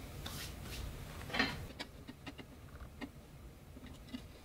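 Faint handling sounds: a few light taps and rustles as a diamond-plate aluminium panel is fitted against a plastic tool box, the clearest about a second and a half in.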